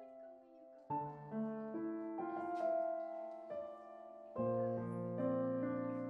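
Background piano music: slow notes and chords struck about once a second and left to ring and fade.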